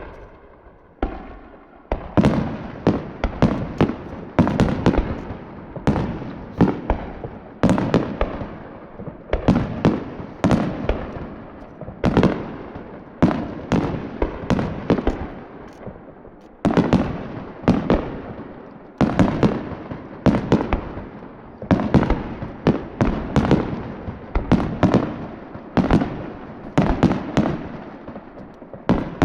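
Aerial fireworks shells bursting in quick succession, many loud bangs a second, each with a rolling echo. A sparse start gives way about two seconds in to a dense barrage that runs on in waves.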